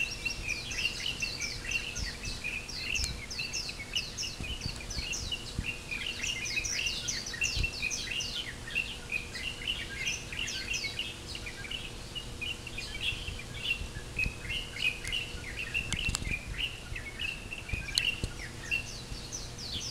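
Pre-dawn chorus of many small birds chirping and singing at once, a dense, continuous flurry of short, high chirps overlapping one another.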